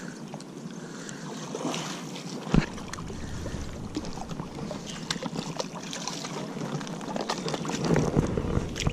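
Wind noise on the microphone and light handling clicks while a hooked bass is reeled in, with one sharp knock about two and a half seconds in. Near the end the bass splashes and thrashes in the shallow water at the bank.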